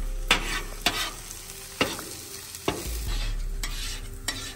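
Diced potatoes sizzling on a grill's griddle plate while a metal spatula scrapes under and flips them, with several sharp scrapes at uneven intervals.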